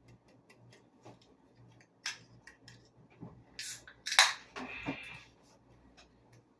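A drink can being cracked open: a sharp snap of the tab about two-thirds of the way through, followed by about a second of fizzing hiss. Light handling clicks come before it.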